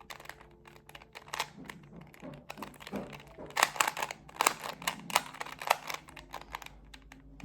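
Plastic Rubik's cube being turned by hand, its layers clicking and clacking in quick, irregular runs of turns, busiest in the middle.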